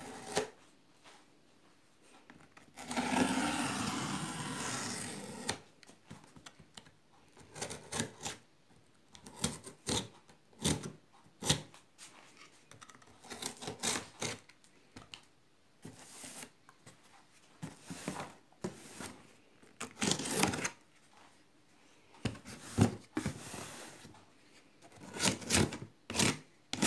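Snap-off utility knife cutting through the packing tape and cardboard of a shipping box: one long slicing scrape about three seconds in, then many short scrapes and clicks as the blade works along the box's seams.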